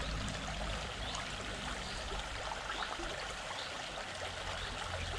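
Shallow stream running and rippling steadily.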